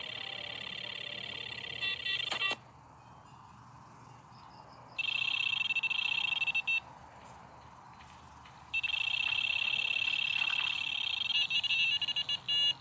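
High-pitched electronic beeping, a rapid warbling alarm-like tone, in three bursts of about two to four seconds with short pauses between.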